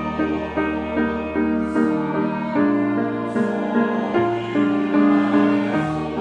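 Slow, gentle instrumental music: a piano playing a flowing accompaniment over held low bass notes.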